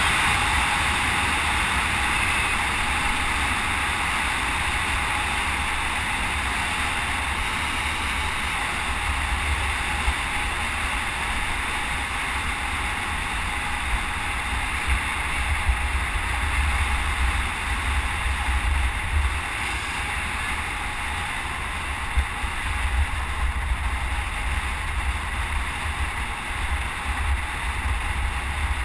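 Wind rushing over a helmet-mounted GoPro HD Hero camera's microphone while riding a road bike at speed: a steady rush with a gusting low rumble.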